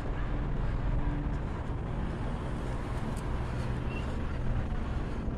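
Steady low rumble of a car's engine and road noise, an even hum with no sudden events.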